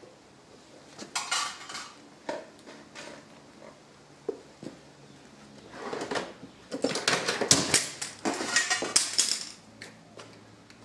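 Light metallic clinks and rattles of a hand tool and small steel parts against the end of a Hewland Mk 8 gearbox as new pins are fitted. A short flurry about a second in, a few scattered clicks, then a longer busy stretch of clinking from about six to nine and a half seconds.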